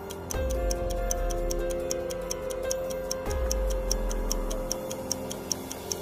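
Clock-ticking sound effect at about four ticks a second over background music with held notes and a low bass, marking the thinking time for a riddle.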